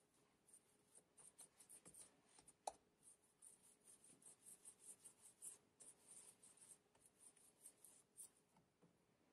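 Near silence with faint, soft rubbing as palms roll a rope of sweet yeast dough back and forth on a kitchen countertop, and once a light tap.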